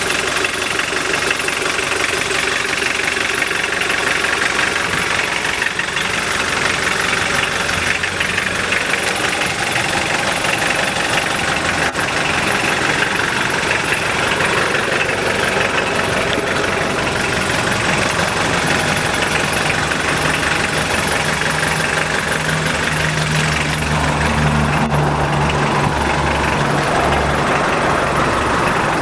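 1989 Mitsubishi Pajero turbo-diesel engine idling steadily. A deeper low hum grows louder over the last third.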